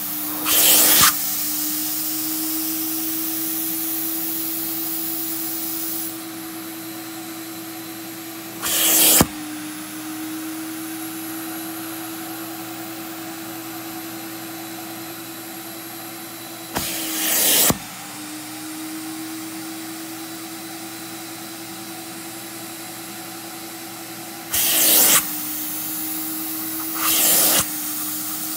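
Carpet-and-upholstery extractor's vacuum motor running with a steady hum as its clear hand tool draws cleaning solution out of a fabric couch cushion. Five short, loud hissing rushes of about half a second to a second break through the hum, each where the tool sprays solution or sucks in a gulp of air and water.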